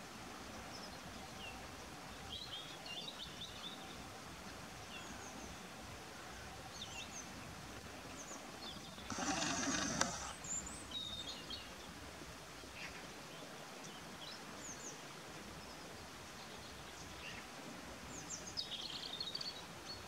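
Quiet outdoor background with small birds giving short, high chirps scattered throughout, and a louder animal call lasting about a second, about nine seconds in.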